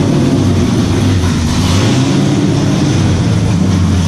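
Race truck's engine idling steadily.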